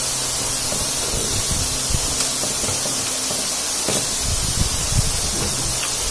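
Steady hiss of background noise, with a few faint clicks and smacks from eating by hand.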